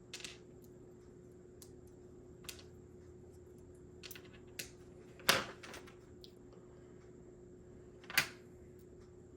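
Scattered light clicks and taps of small HO slot car chassis parts and tools being handled, with two louder clicks about five and eight seconds in, over a faint steady hum.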